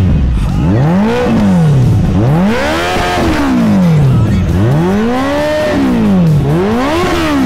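Kawasaki ZX14R's inline-four engine, fitted with a Brocks aftermarket exhaust, being revved at standstill: about four throttle blips, each pitch climbing and falling back to idle, one held longer past the middle.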